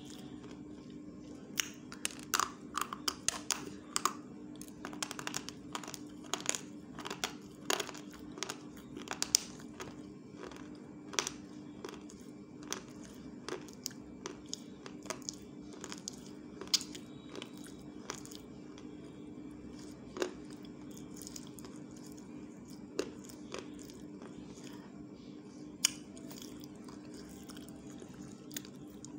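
Close-up crunching and chewing as a person bites into a hard, brittle white stick. The sharp crisp cracks come thick and fast for the first ten seconds or so, then turn scattered, over a steady low hum.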